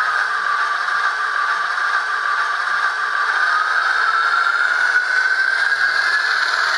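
Bachmann HO scale ALCO S4 model locomotive running, its Soundtraxx sound decoder playing ALCO 539T diesel engine sound through a small speaker, thin and without bass. A whine dips in pitch over the first few seconds and then rises again.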